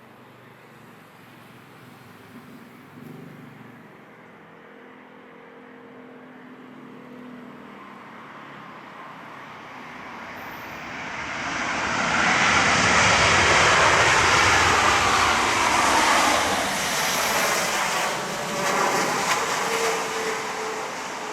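Jet airliner passing close by: its engine noise is faint at first, swells to a loud peak about halfway through, then falls in pitch and fades as it goes past.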